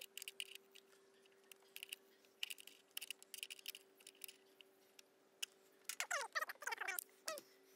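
Faint scattered clicks and taps of a spanner and hand working at a car battery terminal, over a faint steady hum. A few short, squeaky chirps come about six seconds in.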